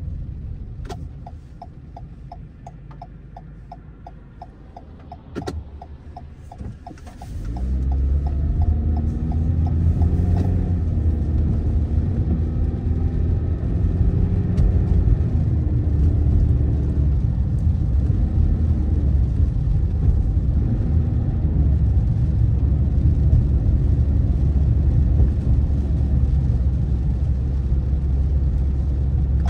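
Inside a car: a turn signal ticks steadily for the first several seconds, then about seven seconds in the car pulls away and a loud low rumble of engine and tyres on the wet road fills the cabin, the engine's pitch rising and dropping as it gathers speed.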